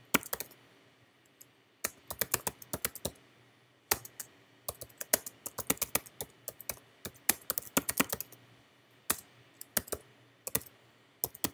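Typing on a computer keyboard: quick runs of keystroke clicks broken by short pauses.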